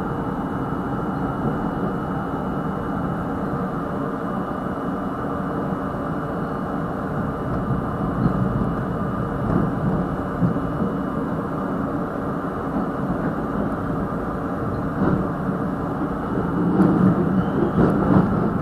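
R32 subway train running on the track, heard through the open front window: a steady rumble of wheels on rail with a faint high whine. It grows louder and clattery near the end as the train runs into the tunnel.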